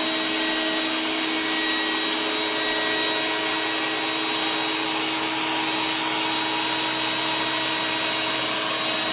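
iRobot Roomba 980-series robot vacuum running steadily on its way back to the dock: an even suction and brush noise with a steady high whine.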